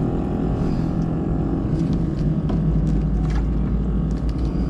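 A motor engine running steadily at constant speed, giving a low, even drone, with a few faint ticks of handling over it.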